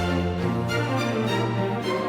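Background music with sustained orchestral string-like tones; the bass note changes about half a second in.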